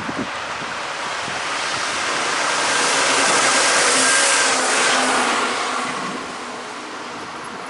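A vehicle passing by: a rushing noise that builds to a peak about four seconds in and then fades, with faint tones that drop slightly in pitch as it goes past.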